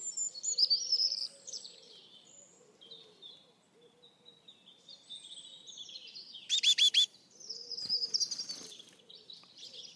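Great tits calling at close range: high chirps and short call notes, loudest in a run of four quick notes about six and a half seconds in.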